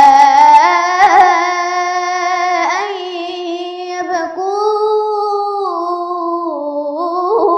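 A girl's voice chanting Quran recitation in the melodic tajweed style, drawing out long held notes that step slowly up and down in pitch, with short catches for breath about a second in and near the end.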